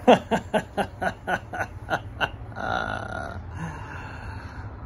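A man laughing: a quick run of about ten falling 'ha' bursts over two seconds, loudest at the start, then a short breathy wheeze.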